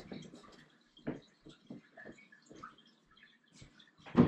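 Scattered light knocks and clicks of handling. About four seconds in, a glass measuring cup of water is set down on a wooden table with one sharp knock, the loudest sound here.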